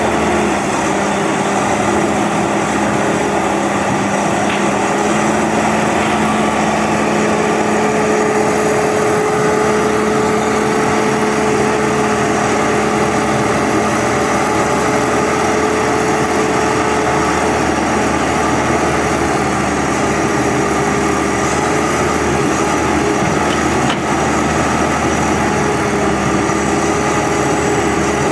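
Heavy-equipment diesel engine running at a steady, unchanging speed.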